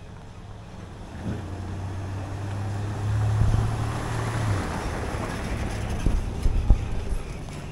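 A motor vehicle passing: its engine hum and road noise swell to a peak about halfway through, then ease off, with a few sharp knocks near the end.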